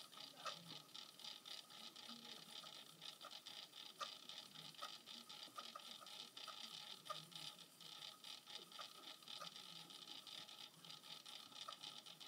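Near silence: faint steady hiss with a few scattered faint ticks.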